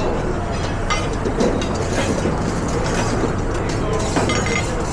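Busy commercial kitchen during service: a steady loud rush of noise from the extraction hood and cooking, with scattered clinks and knocks of pans and utensils.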